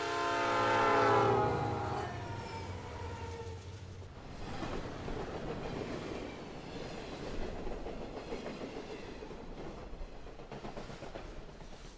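Train horn blowing as a train passes, its chord dropping in pitch and fading within the first couple of seconds, then the noise of the train running past.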